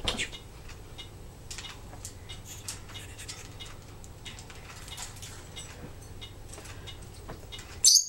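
Timneh African grey parrot clambering on a wooden perch and wire cage: scattered light ticks and scratches from its claws and beak. Just before the end there is one short, sharp, high-pitched sound as it swings upside down.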